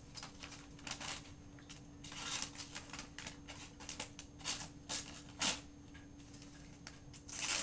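Folding knife blade slicing through sheets of glossy catalog paper: a series of short, irregular swishing strokes of the edge through the paper.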